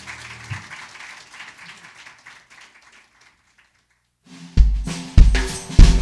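A grand piano's final chord rings and is damped about half a second in, followed by audience applause that fades away by about three seconds in. After a moment of silence, a drum kit comes in loudly with heavy kick drum hits in a steady beat, the start of band music.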